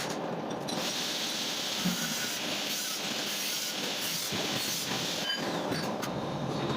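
Workshop machinery running steadily, with a hiss that starts just under a second in and stops about four and a half seconds later.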